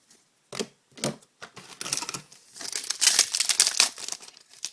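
Trading cards being handled with a few light clicks, then about two and a half seconds in a foil card-pack wrapper crinkles loudly for over a second.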